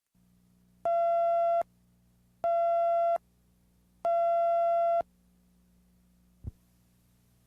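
Three steady electronic beeps on one pitch, each just under a second long and about a second and a half apart, over a faint low hum, followed by a single dull thump near the end.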